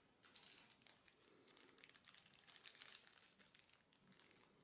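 Faint crinkling of a small clear plastic bag, the packet holding a soldering sponge, as it is handled: a dense run of soft crackles.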